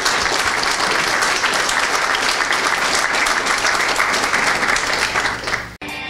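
Audience applause: dense, steady clapping that cuts off suddenly near the end.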